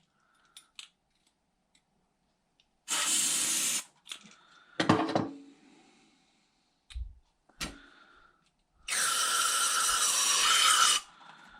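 Two hissing blasts of pressurized spray cleaning out a carburetor's passages, the first about a second long and the second about two seconds, a few seconds apart. A few light clicks and knocks fall between them.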